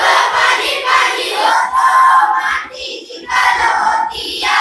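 A class of schoolchildren singing a line of a Marathi poem in unison, repeating it after their teacher; many young voices together, with short breaks between phrases.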